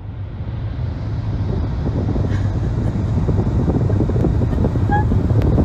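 Road and wind noise from a moving car on a highway, with a low rumble and wind buffeting the microphone, growing steadily louder.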